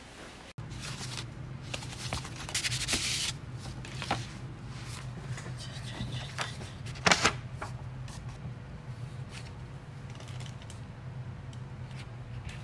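Paper rustling as a hanging paper wall calendar's page is handled and turned over, with a louder rustle around two to three seconds in and one sharp paper rustle about seven seconds in, over a steady low hum.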